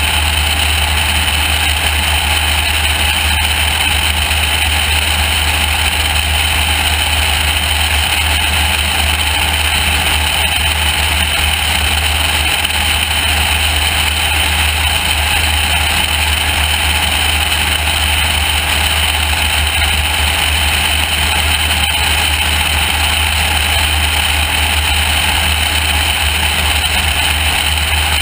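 Loud, steady wind rush on a camera mounted outside a high-wing light aircraft in flight, with the aircraft's engine droning underneath.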